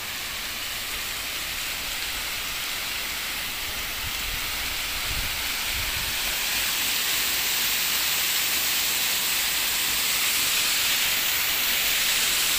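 Steady rushing hiss of falling water from a monsoon waterfall, growing gradually louder. A few faint low bumps about four to six seconds in.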